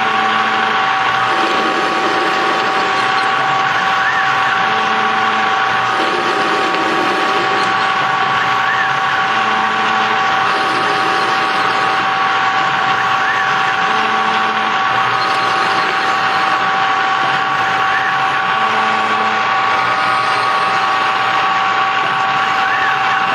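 Microkinetics CNC lathe single-point cutting a thread in stainless steel, with the spindle running and a steady two-note whine. A short lower buzz repeats about every four and a half seconds as the machine cycles through its threading passes.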